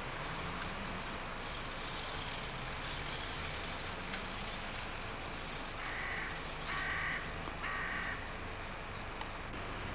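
A crow cawing three times in quick succession, over a steady outdoor background hum. Three short high chirps, a couple of seconds apart, stand out as the loudest sounds.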